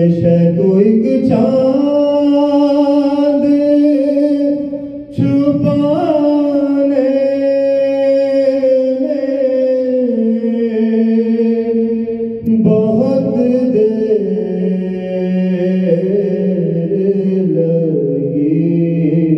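A man chanting soz, a Shia lament, solo into a microphone in long, drawn-out notes that slide between pitches, breaking for breath about five seconds in and again about twelve seconds in.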